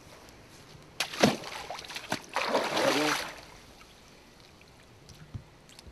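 Rubber boots stepping down into a shallow stream: a sharp splash about a second in, then a longer burst of splashing, sloshing water around two and a half to three seconds, over the faint steady trickle of the stream.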